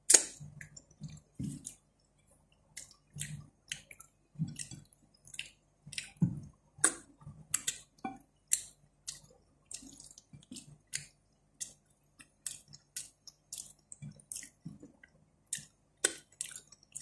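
Close-up wet chewing and lip-smacking while eating lugaw, rice porridge, by hand: a string of irregular moist clicks and smacks, about two or three a second.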